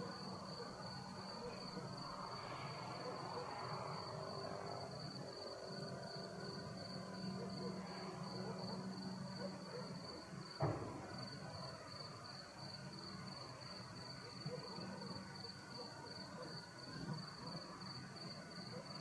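Crickets chirping steadily in a constant, even pulse, with one short, sharp bang a little past halfway.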